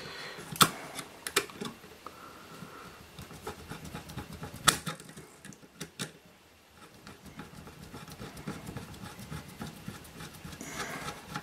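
Small screwdriver working a deep screw in a sheet-aluminium avionics case: light scraping and scattered clicks and metal taps, a sharper click nearly five seconds in.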